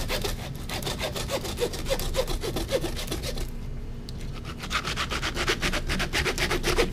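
Butcher's hand bone saw cutting through pork rib bones in rapid back-and-forth strokes, easing off briefly about halfway, while separating the loin from the belly.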